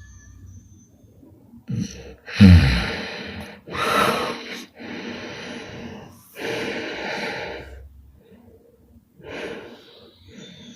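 A sleeping woman snoring: one loud snort about two and a half seconds in, dropping in pitch, then four or five heavy, noisy breaths with short pauses between them.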